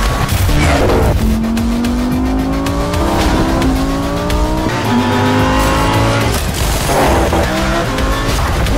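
Audi R8 V10 engine accelerating hard on track. The revs rise and fall back at each upshift, several times over, and the car sweeps past about a second in and again near the end.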